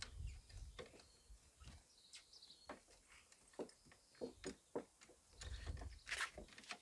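Faint scattered clicks, taps and rustles of a trunk-mounted bike rack's straps and buckles being handled and pulled tight against the car, with low thuds near the start and again about five and a half seconds in.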